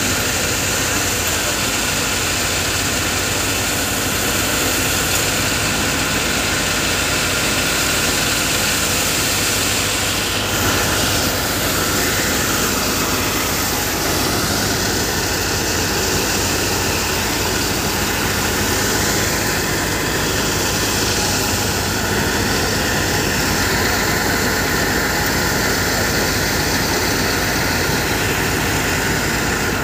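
Paddy thresher running steadily, driven by a Swaraj 960 FE tractor's diesel engine, while bundles of paddy are fed into its drum. Loud, even machine noise with no pauses.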